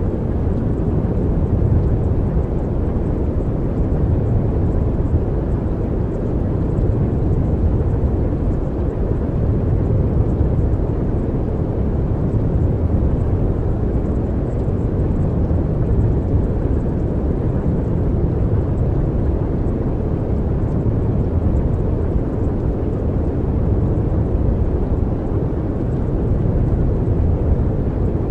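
Steady low rumbling noise, even and without any pitch, with small slow swells in loudness.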